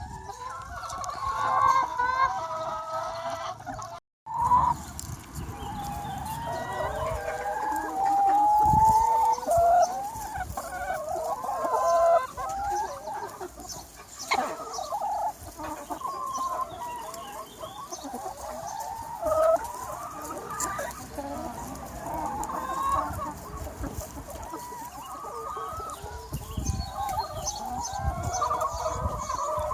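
A large free-range flock of chickens clucking and calling over one another without a break, apart from a brief dropout about four seconds in.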